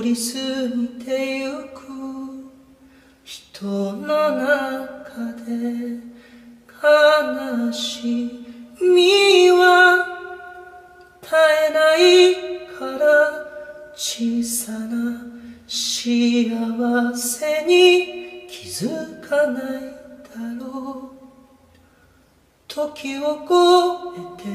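A single voice singing a slow song unaccompanied, in phrases of long held notes with short breaks between them.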